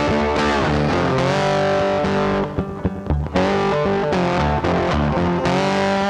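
Rock-style music led by distorted electric guitar, its held notes bending in pitch. It thins out briefly about two and a half seconds in, then comes back full.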